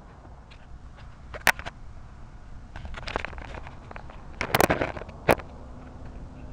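Handling noise on the RC boat's onboard keychain camera: a few sharp clicks and knocks with some scraping between them, the loudest cluster about four and a half seconds in and a last sharp click just after.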